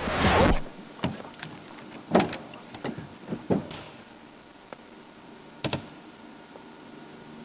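Irregular light knocks and clicks, about ten spread over several seconds, after a brief rushing noise at the very start.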